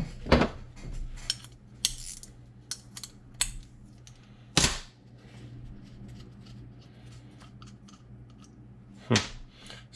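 Hand tools clicking and knocking against a metal carburetor as it is taken apart on a workbench: scattered sharp clinks, the loudest about halfway through and another near the end. A faint steady hum runs underneath.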